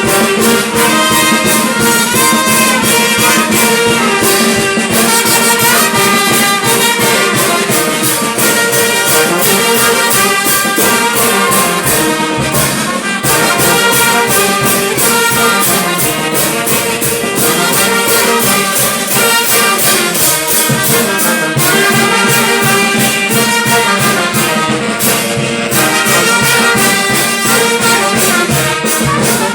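A banda orquesta of trumpets and trombones playing loud music with a steady beat.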